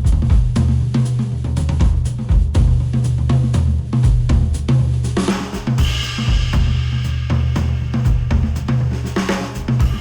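Instrumental music with a steady drum-kit beat of kick, snare and hi-hat, played back through planar-magnetic hi-fi headphones and picked up by microphones at the earcups. About halfway a brighter cymbal wash comes in over the beat.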